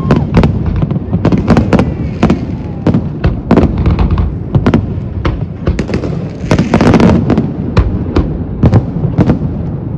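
Aerial fireworks display: shells bursting in rapid, irregular succession, two or three sharp bangs a second over a continuous low rumble.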